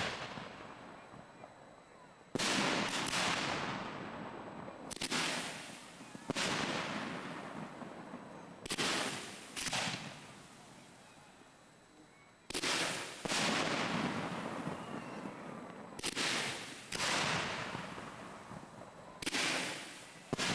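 Fireworks display: aerial shells launched from mortar racks and bursting, about ten sharp booms at irregular gaps of one to three seconds, each trailing off in a fading rumble.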